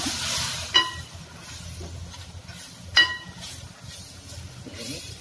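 Steel ladle stirring and frying a spiced curry base in an aluminium pot, with two ringing clinks of the ladle against the pot, about a second in and about three seconds in, and a hiss at the start. The spice powder is being fried off to take away its raw smell.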